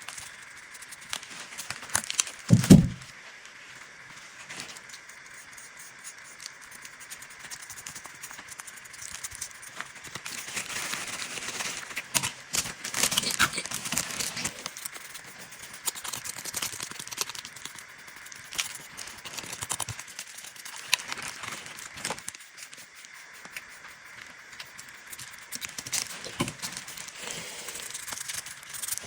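Hand-tool work on small rusty metal clock parts: scraping and brushing with scattered small clicks and rattles, and one loud dull thump about three seconds in.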